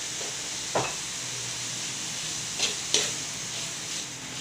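A metal spatula stirs a milkfish-and-vegetable filling in a frying pan, scraping against the pan three times over a steady low sizzle.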